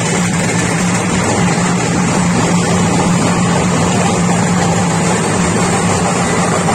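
A vehicle engine running steadily, with a constant low hum.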